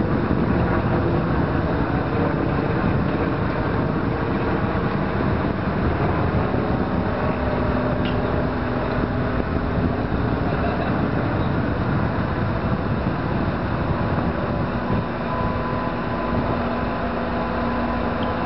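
Steady outdoor rumble of wind buffeting the microphone, with a faint, steady engine hum from distant traffic.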